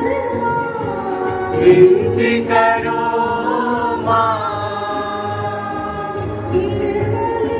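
Group of voices singing a Christian devotional hymn in long held notes, with a few louder noisy accents about two seconds in.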